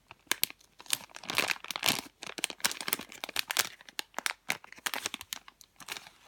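Plastic packaging of a squishy toy crinkling and crackling as it is handled, in many irregular sharp crackles.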